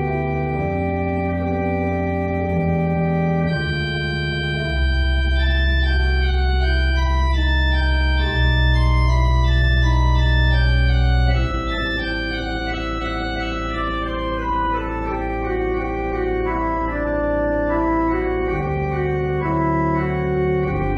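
Church organ playing a chorale prelude: sustained chords over held bass notes that change every few seconds, with a line of notes stepping steadily downward through the middle.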